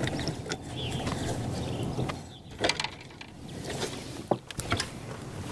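Handling noise on a small fishing boat: scattered knocks and clicks as a just-caught crappie is landed and taken in hand. Under them a low hum fades after about two seconds.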